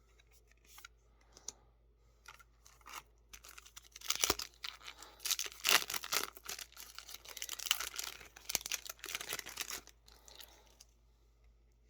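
Yu-Gi-Oh booster pack's foil wrapper being torn open and crinkled. A few light clicks come first, then dense rustling runs from about three and a half seconds in until near the end.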